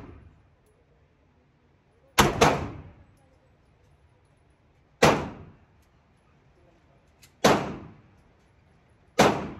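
Handgun shots on an indoor range: five shots, the first two in quick succession about two seconds in, then one roughly every two and a half seconds, each trailing off in a short echo.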